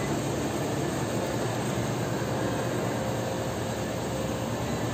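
Steady, loud mechanical drone with a low hum underneath, even throughout with no separate knocks or calls.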